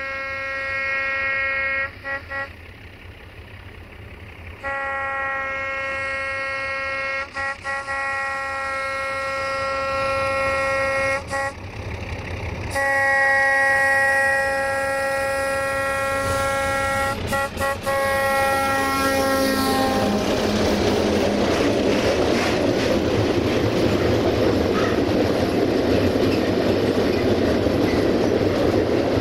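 Horn of a Romanian 060-DA (Electroputere LDE2100) diesel-electric locomotive sounding three long blasts on one pitch, each broken by a few brief stutters. From about twenty seconds in, the locomotive passes close and its train of loaded flat wagons rolls by with steady wheel-on-rail clatter.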